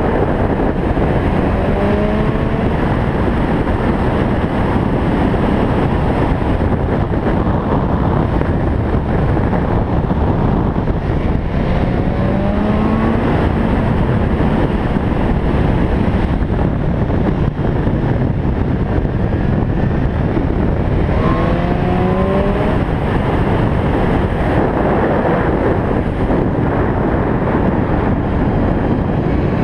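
Motorcycle at speed: a steady rush of wind over the microphone, with the engine note rising as it accelerates three times, about two, twelve and twenty-one seconds in.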